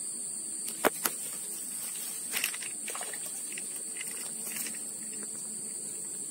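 Steady high-pitched insect drone from the ditch-side vegetation, with two sharp clicks about a second in and a smaller cluster of clicks about two and a half seconds in.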